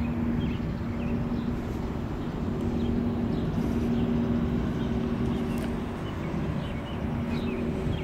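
Outdoor ambience: a steady low hum, fading out about two seconds in and again near six seconds, over a constant rumble, with small bird chirps now and then.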